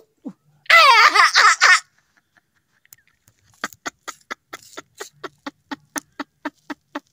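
A man laughing: a loud, high-pitched wavering burst about a second in, then after a pause a long run of short, even laughs, about four a second.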